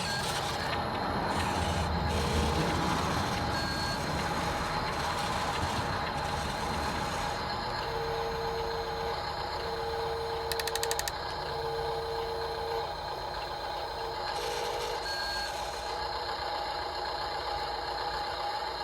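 A vehicle reversing alarm beeps three times, each beep about a second long, over a steady mechanical running noise.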